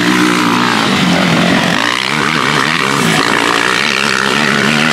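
ATV engines revving up and down as the quads ride across a dirt field, with the pitch rising and falling repeatedly and more than one engine overlapping about two seconds in.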